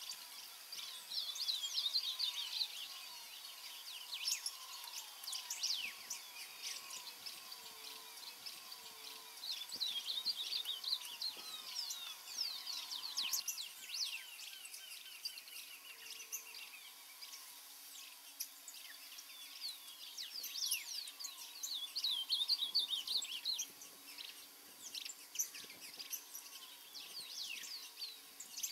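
Several songbirds calling and singing at once: many quick high chirps and short trills overlapping, with a fainter run of lower falling notes in the first half.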